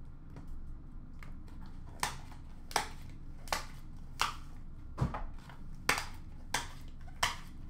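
Trading cards being handled at a counter right after the box is opened: a regular series of short, sharp clicks, about one every 0.7 s, over a low room hum.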